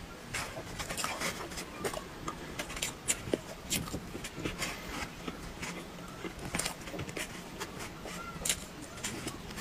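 Close-up eating sounds: a spoon scooping soft cream dessert from a foam takeaway box, with wet mouth clicks and smacks of chewing. Many short sharp clicks come at irregular intervals.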